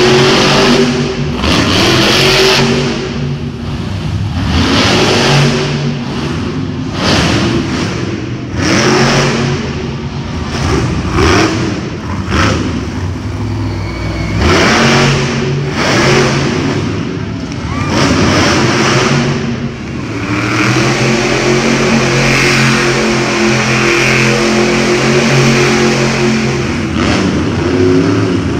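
Monster trucks' supercharged V8 engines revving hard again and again, the revs surging up and dropping back every second or two. Near the end one engine holds high revs steadily for several seconds.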